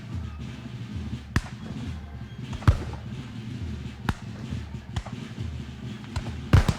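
Battlefield gunfire: about five single gunshots cracking out at irregular intervals over a low rumbling background. The loudest comes a little under three seconds in, and a doubled shot comes near the end.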